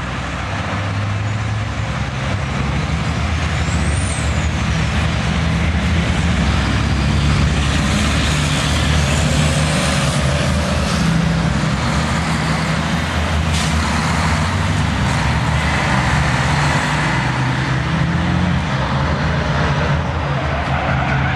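Several race trucks' large diesel engines running as the pack drives past, a loud, steady, low engine sound.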